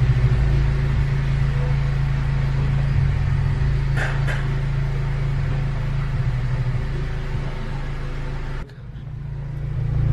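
Honda Civic Si's four-cylinder engine idling steadily, with a couple of light clicks about four seconds in. The sound drops away abruptly near the end, then builds back up.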